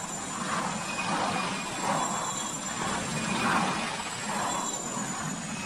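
Large helicopter running close by at low altitude: a steady rushing engine and rotor noise that swells and fades about once a second.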